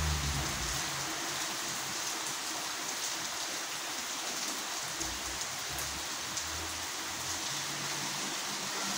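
Heavy rain falling steadily onto a flooded street and wet pavement, an even hiss. A faint low engine hum comes in near the end.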